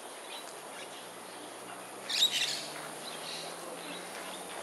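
Small birds chirping, with one loud, brief burst of high chirps about two seconds in.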